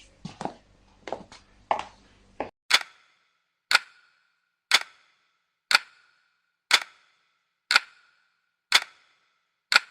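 A few irregular light clicks over a faint hum, then from about two and a half seconds in a sharp clock-like tick exactly once a second, eight times, each with a short ringing tail.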